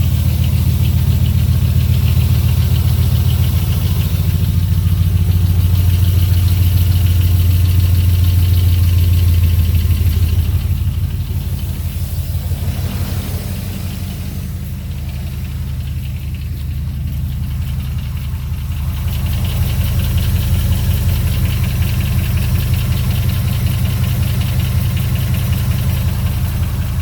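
2002 Dodge Ram's 4.7-litre V8 running from a cold start with a clattering noise that stops once the engine is warm; the owner has ruled out a cracked exhaust manifold and the lifters. The sound gets quieter for several seconds around the middle, then comes back up.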